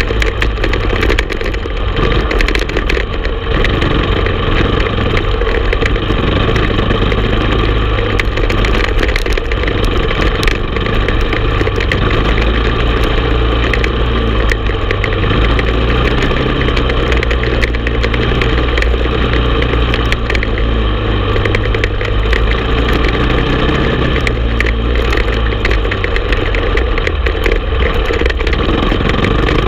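Honda TRX450 ATV's single-cylinder four-stroke engine running steadily as the quad is ridden along a dirt trail, loud and close to the handlebar-mounted microphone.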